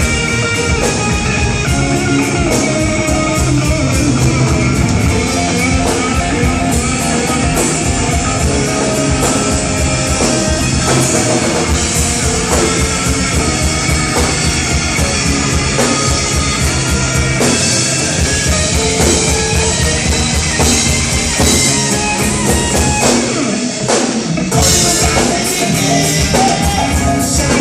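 Live rock band playing an instrumental passage with electric guitar and a full drum kit, loud and continuous, with a brief drop in the drums about 24 seconds in.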